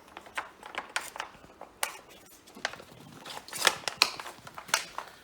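High-pressure hose being fed through a hollow window-cleaning pole: irregular small clicks and knocks of the hose and its fitting against the pole, with a couple of louder knocks about three and a half to four seconds in.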